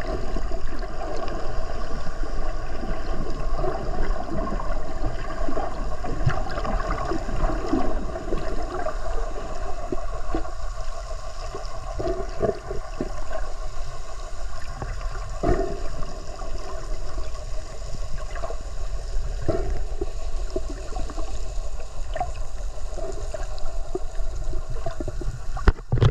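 Underwater ambience: steady water noise with a constant faint hum under it and scattered clicks and gurgles.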